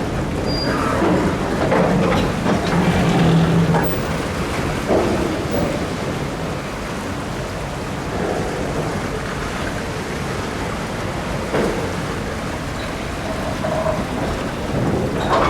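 Freight train rolling slowly through floodwater over the rails: a steady rush of splashing, churning water, with scattered knocks and a low engine hum in the first few seconds.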